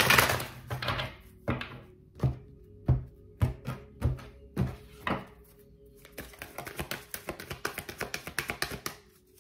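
A deck of oracle cards being shuffled by hand: a run of separate swishing slaps, about one every half second, then from about six seconds in a quick flutter of cards riffling.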